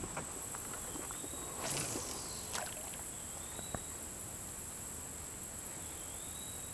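Steady high-pitched insect chorus, with a faint short rising call about every two and a half seconds and a few soft knocks.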